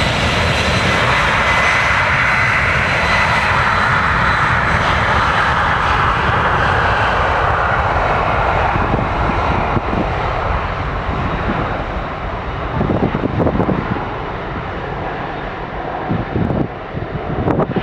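Jet airliner's engines at takeoff power during a departure, a loud rush with a faint high whine that falls slightly in pitch. The higher part of the noise fades through the second half as the aircraft moves away.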